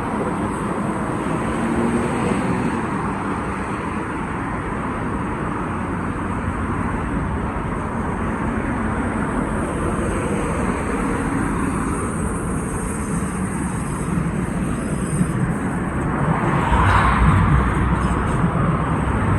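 Road traffic going by steadily, tyre and engine noise of cars, with a vehicle passing close and louder about three-quarters of the way through.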